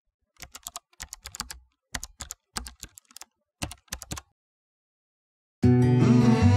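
Computer keyboard typing sound effect: quick key clicks in short bursts for about four seconds, then a pause. Music starts about a second before the end.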